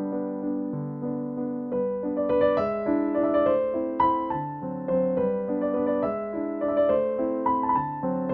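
Background music: a gentle piano or electric-piano tune playing a steady sequence of notes.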